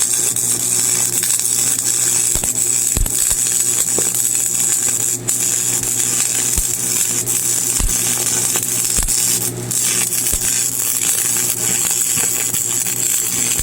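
Stick welding with a 7018 electrode: the arc's steady loud crackling hiss with irregular pops, over a low steady hum.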